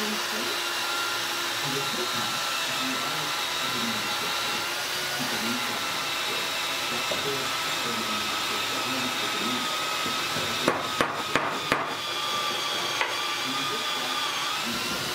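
Steady whirring workshop noise with a faint wavering whine, and a quick run of four sharp metal clicks followed by one more, as steel gears and a shaft are set into an aluminium gearbox housing.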